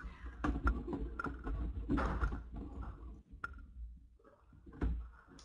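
Plastic thermal tumbler being opened and drunk from: several sharp clicks and light knocks from its snap lid and cup, over a low rumble of handling noise.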